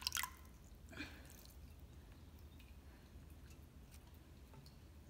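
Wet aquarium weed lifted out of a bowl of water and let fall back, with a short splash and dripping right at the start and again about a second in, then faint small drips and wet rustles.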